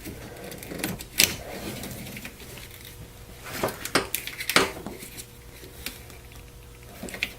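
Clicks and light clatter of a plastic electrical connector and small parts being handled on a workbench. There are a few sharp knocks, the loudest about a second in and around four to four and a half seconds in.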